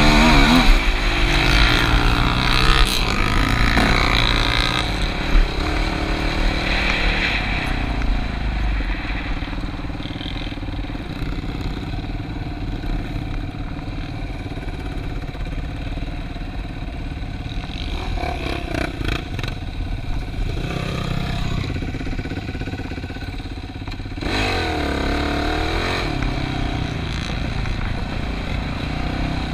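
ATV engine running while being ridden, revving up and down. The revs are highest in the first couple of seconds, steadier in the middle, then rise and fall again about three-quarters of the way through, with a few brief knocks along the way.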